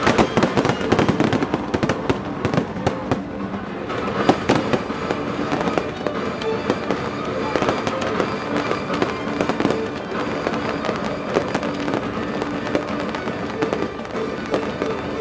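Aerial fireworks going off close by: many bangs and crackles in quick succession, densest in the first few seconds and then a steadier crackle.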